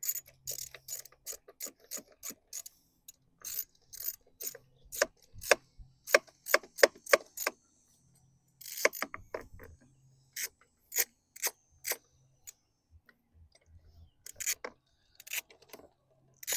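Hand socket ratchet clicking in several runs with short pauses between them, as the carburetor's mounting bolts are run into the intake manifold.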